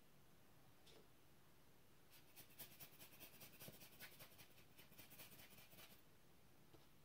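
Cotton swab scrubbing the glass prism of a Kiev TTL prism finder with quick back-and-forth strokes: faint scratchy rubbing from about two seconds in until about six seconds.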